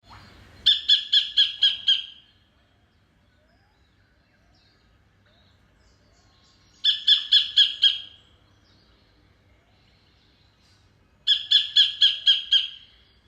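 Sacred kingfisher calling in three bouts of five or six harsh, sharply repeated notes, about five a second, with pauses of several seconds between bouts. Fainter chirps from other birds sound in the gaps.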